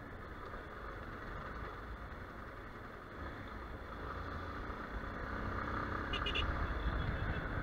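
Yamaha XTZ 250 Ténéré motorcycle on the move: its single-cylinder engine running at low road speed as the bike slows, under a steady rush of wind and road noise. A brief high chirp sounds about six seconds in.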